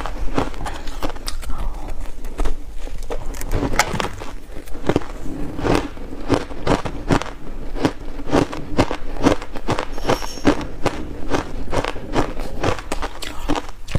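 Close-miked chewing of crunchy shaved buckwheat ice: a steady run of sharp, irregular crunches, about two or three a second, as the ice is ground between the teeth.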